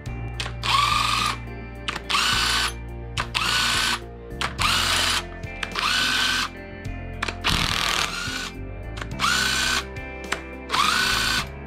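Cordless drill fitted with a socket, spinning the rocker-arm bolts on a Cummins 6BT diesel's cylinder head. It runs in about eight short bursts, each a whine that rises quickly and then holds a steady pitch.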